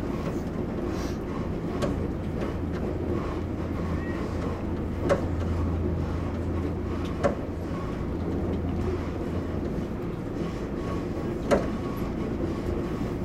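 Fujikyu limited express train running along the track, heard from inside: a steady low hum and rumble, with three sharp clicks spread through it.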